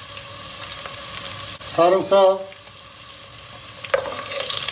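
Carrots and onion sizzling steadily as they fry in a little oil in a granite-coated pot. Near the end a wooden spoon starts stirring, knocking a few times against the pot.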